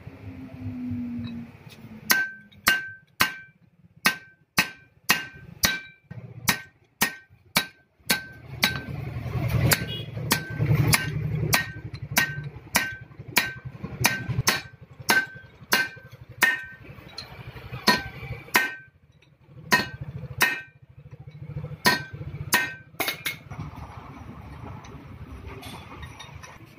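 Hammer striking steel parts on a tractor's splined axle shaft and brake housing. The strikes come steadily, about one every two-thirds of a second, each a sharp metallic clink with a short ring, with two brief pauses.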